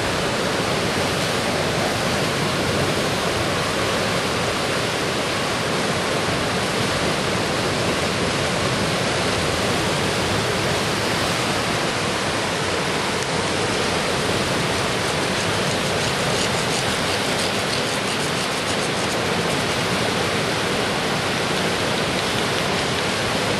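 Fast-flowing river water rushing steadily, an even, unbroken wash of noise.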